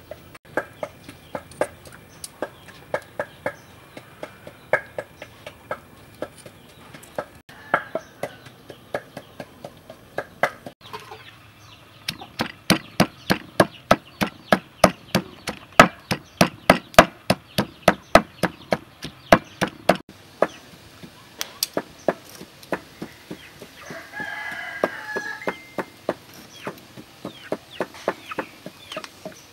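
Wooden pestle pounding chilies and herbs in a mortar: sharp knocks, sparser at first, then a fast steady run of about three or four a second that is the loudest part. A chicken clucks near the end.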